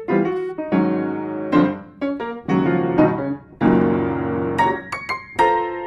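Solo piano music: single notes and chords struck and left to ring away, with a fuller held chord about midway and a run of quick high notes just after it.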